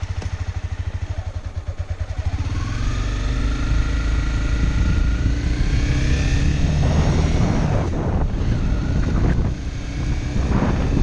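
Honda CBR300R's single-cylinder engine idling with an even pulse, then pulling away and rising steadily in pitch as it accelerates. From about seven seconds in, wind buffeting on the helmet-mounted camera's built-in microphone increasingly covers the engine.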